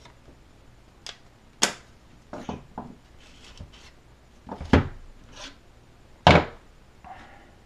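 Hand tools knocking and clattering as they are picked up and set down on a workbench: a series of irregular sharp knocks, the loudest two in the second half.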